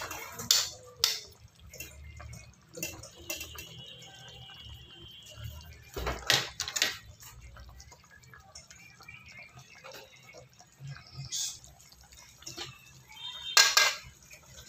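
A spoon scooping through chicken in broth in an aluminium pan, with liquid sloshing and the spoon clinking against the pan now and then. Near the end, an aluminium lid is set down on the pan with a clank.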